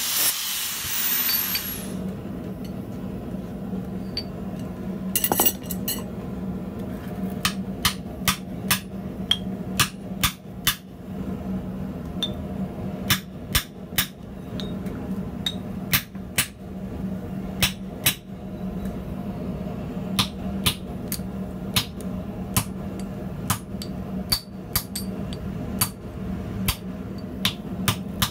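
A handheld grinder with a pink disc grinding a steel bar in a vise, cutting off about two seconds in. From about five seconds in, a hand hammer strikes red-hot steel on a steel block, many sharp blows at irregular intervals of about a second, over a steady low hum.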